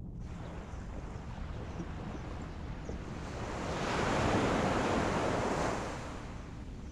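Ocean waves washing against the shore over a steady low rumble, with one wave building to a rush a little past halfway and dying away about two seconds later.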